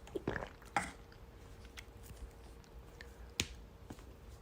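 A few short, quiet clicks and taps: two brief sounds in the first second and a sharp click about three and a half seconds in.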